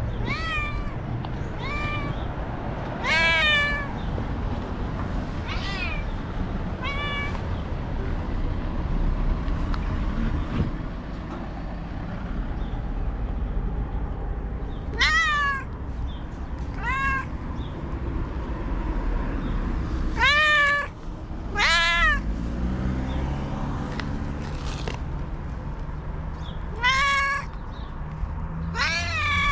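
White stray cat meowing again and again, about a dozen meows in two runs with a quiet gap of several seconds between them; the meows bend up and down in pitch, and a few are long and loud.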